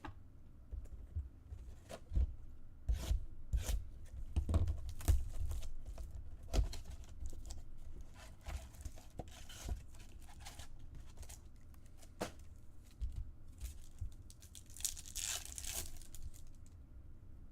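Trading card packaging being torn open and crinkled: a run of short crackly rips, then one longer rip near the end.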